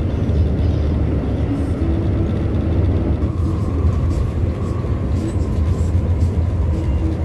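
Steady low rumble of a coach bus's engine and road noise, heard from inside the passenger cabin while driving.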